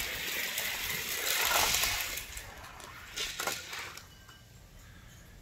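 Die-cast 1:64 cars rolling fast down a plastic gravity-racing track after the gate drops: a dense rolling rattle of small wheels on the track, loudest about a second and a half in, with a few sharp clicks near three and a half seconds, then fading out about four seconds in.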